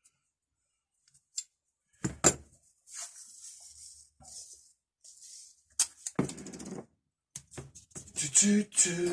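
Workshop handling noises: sharp clicks and knocks of metal tools being picked up and set down, with a few short hissing bursts between them.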